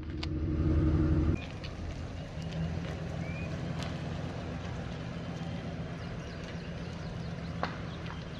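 Full-size van's engine idling, cutting off abruptly about a second and a half in. A quieter steady outdoor background follows, with a couple of faint ticks.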